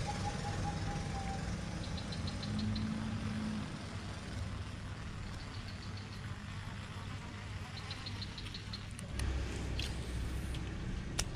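A steady low hum like a motor running nearby, with three short bursts of rapid, high ticking.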